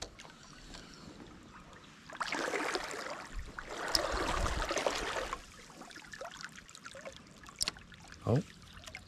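Creek water splashing and sloshing in two stretches of a second or two each, over the stream's faint trickle, with a short tone sliding downward near the end.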